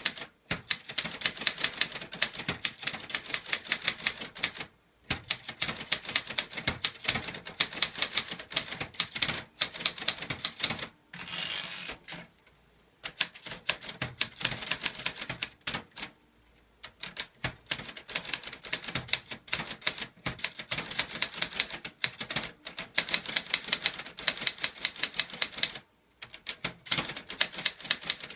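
Clover Top Star 10S Korean manual typewriter, typed without an ink ribbon: quick runs of sharp keystrokes broken by short pauses. A single short high ding sounds about nine seconds in, and a brief swish follows a couple of seconds later before a pause.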